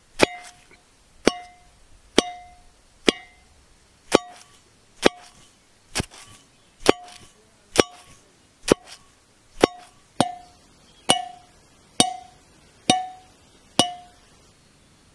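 A long pestle pounding fried prawns in a rusty metal mortar. Sharp strikes come about one a second, each leaving a brief metallic ring, and stop shortly before the end.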